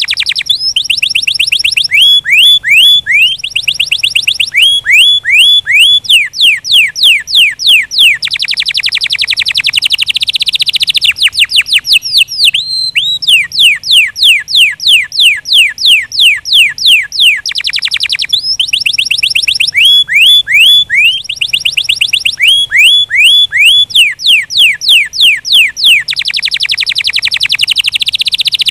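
Domestic canary singing a long, loud song of fast trills: runs of high, falling whistled notes repeated several times a second, switching to a new phrase every few seconds.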